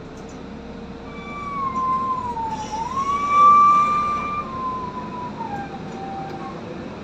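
An emergency vehicle's siren wailing, heard from inside a moving city bus over the bus's steady engine hum. The siren's pitch dips, climbs to its loudest about three and a half seconds in, then falls away near the end.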